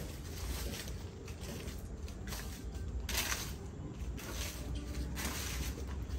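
A rake scraping across grass and dirt in repeated strokes, about one a second, raking up dry leaves.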